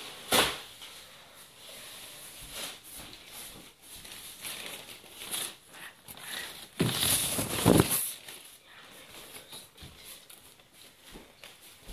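Tabletop handling noises while white glue is squeezed from a bottle into a plastic cup: a sharp knock near the start, scattered soft clicks and rustles, and a louder rustling stretch lasting about a second past the middle.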